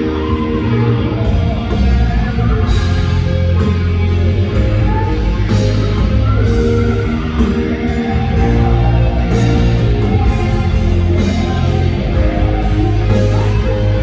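Rock band sound check played through a stadium PA: distorted electric guitar, heavy bass and drums, with cymbal crashes every second or so.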